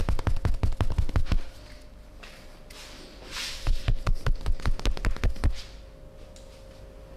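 Percussive massage: hands rapidly striking the body, about eight strokes a second, stopping about a second and a half in, then a second run of strikes from about three and a half to five and a half seconds in.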